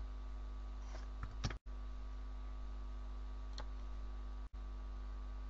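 Steady low electrical hum on the recording, with a few faint computer keyboard and mouse clicks about a second in and again later. The sound cuts out for an instant twice.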